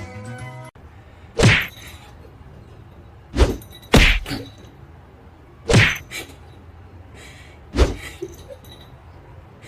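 Background music stops just under a second in. Then come five loud thumps at uneven gaps of half a second to two seconds, each with a short ringing tail.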